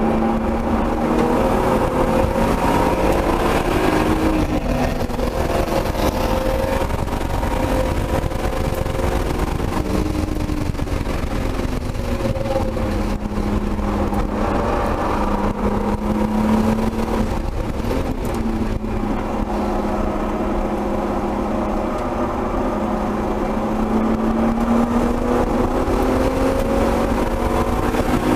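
Turbocharged 1999 BMW M3's straight-six heard from inside the cabin at full effort on track, its note rising as it accelerates and falling back several times.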